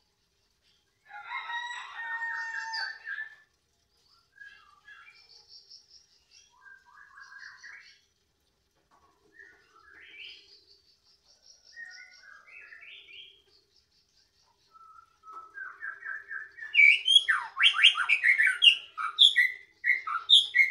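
White-rumped shama (murai batu) singing in a cage, with varied whistled phrases. There is a clear phrase about a second in, then softer scattered notes, then very loud, rapid, varied song over the last five seconds.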